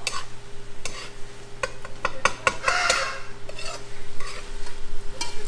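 A spoon stirring and scraping in a pot of food frying in oil, with repeated clicks and knocks of the spoon against the pot and sizzling that swells about halfway through.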